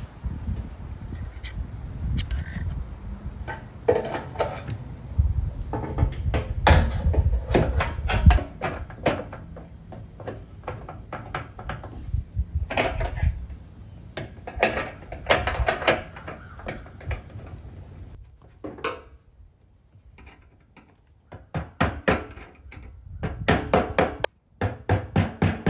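Metal clinks and clatter as a fuel pickup and its lock ring are fitted into the opening of a steel fuel tank. Near the end comes a quick run of knocks as the lock ring is tapped round with a rubber mallet against a driving tool.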